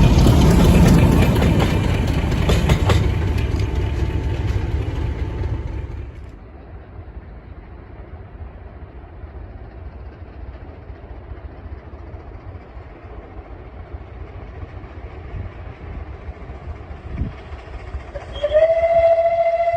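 A train passes close by, rumbling with wheels clicking over the rail joints, and drops away sharply about six seconds in. Near the end a steam locomotive whistle sounds one steady, held note.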